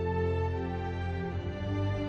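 Slow, gentle background music of long sustained notes, with a chord change about halfway through.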